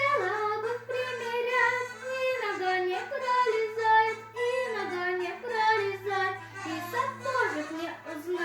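A young girl singing a melody over musical accompaniment, in short phrases that step up and down.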